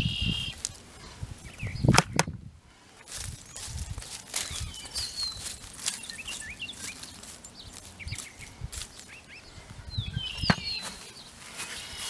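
A hand weeding tool digging and scraping through soil and bark mulch, with scattered clicks and two sharp knocks, about two seconds in and near the end. Small birds chirp now and then.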